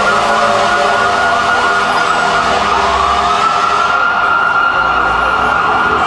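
Several emergency-vehicle sirens wailing at once, their rising and falling tones overlapping; one climbs to a held high note about three seconds in.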